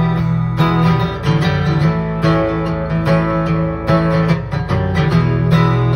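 Acoustic guitar strummed in a steady rhythm: an instrumental break of chords between sung verses, with no singing.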